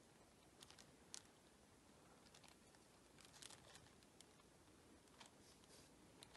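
Near silence, with faint, scattered light ticks and crackles.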